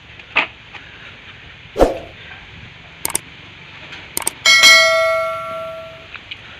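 A few light knocks and one heavier thud, then a metal utensil struck with a loud clang that rings on and fades over about a second and a half, typical of a spoon hitting a steel plate or bowl.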